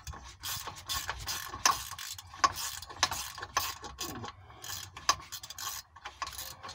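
Ratchet wrench clicking in short, uneven strokes, several clicks a second, as it loosens an exhaust bolt.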